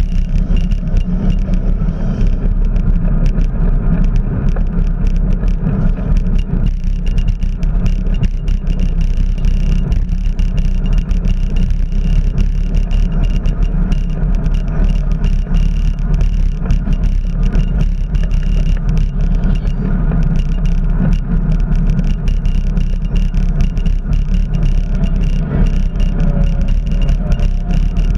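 Bicycle riding noise: steady wind rumble on the microphone with tyre and road noise and many small rattles and clicks.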